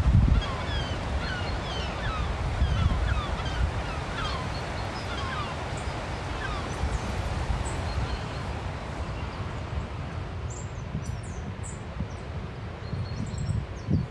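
Birds chirping many times in quick succession over a steady low rumble of wind and surf. The chirping thins out about halfway through, leaving a few higher, fainter calls near the end.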